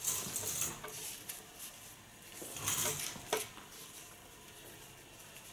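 Two short scratchy strokes of a corded hot razor drawn through damp hair: one right at the start, the other about two and a half seconds in, ending with a sharp click.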